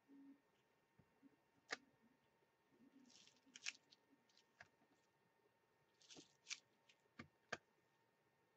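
Faint handling sounds of clear-stamp stamping: scattered sharp clicks and taps of an acrylic stamp block being set down and pressed onto a paper bubble mailer, with a few brief rustles.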